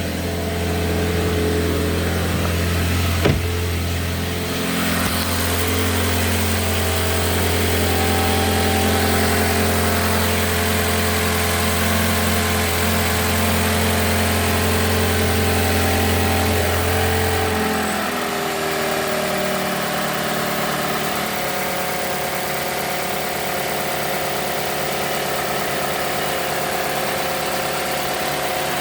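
Mazda CX-5's 2.5-litre Skyactiv-G four-cylinder petrol engine idling just after a cold start, on its warm-up idle. About two-thirds of the way through, the low drone drops away and the pitch falls slightly as the idle settles lower. A single sharp click about three seconds in.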